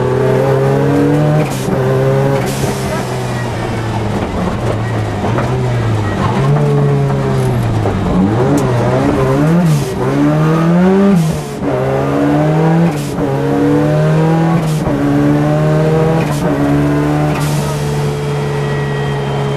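Ford Sierra Cosworth rally car's turbocharged four-cylinder engine at full stage pace, heard from inside the cabin: it revs up through the gears, with a short sharp break at each shift. Around the middle the pitch drops and climbs several times in quick succession before it pulls steadily again.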